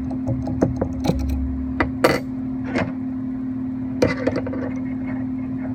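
Scattered metallic clicks and taps of a hand tool on the carriage of a 7x10 mini metal lathe as its gib adjustment screws are worked, over a steady low hum. The taps cluster in the first three seconds, with a few more about four seconds in.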